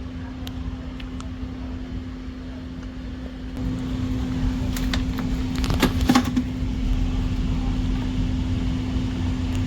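Outdoor air-conditioning condenser unit running with a steady hum on one tone; its low rumble grows louder about three and a half seconds in, with a few light clicks around six seconds.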